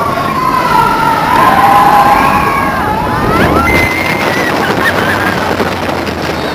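Several riders on the Expedition Everest roller coaster screaming, their voices rising and falling over one another, above the steady rushing noise of the moving coaster train. The screams thin out after about four seconds.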